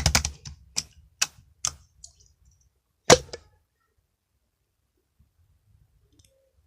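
A quick run of sharp clicks and pops that thins out to a few separate clicks, then one loud click about three seconds in, then quiet.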